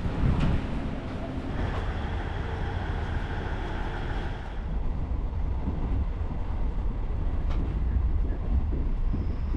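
Train running on the rails: a steady low rumble with a faint high-pitched tone for a few seconds near the start, and a single click later on.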